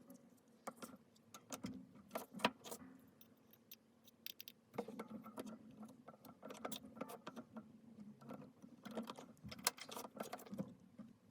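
Faint, scattered clicks and light taps of small hard plastic parts being handled, coming in irregular clusters with a faint steady hum underneath.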